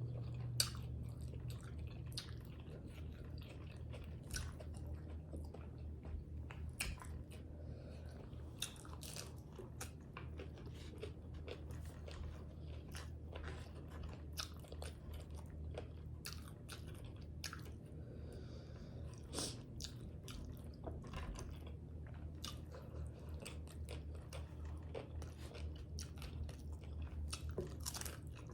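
A person chewing and biting tacos close to the microphone, with irregular sharp crunches and mouth clicks, over a steady low hum.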